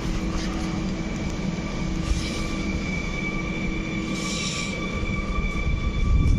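Stadler Flirt electric multiple unit rolling slowly past, a low rumble under a steady high-pitched whine, with two short hisses about two and four seconds in; the rumble grows louder near the end.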